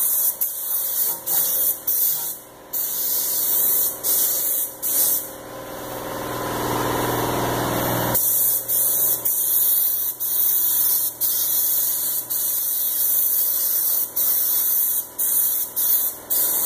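Air-powered paint spray gun hissing as it sprays paint onto a truck body, in repeated bursts that stop and start as the trigger is released and pulled again. A faint steady hum runs underneath.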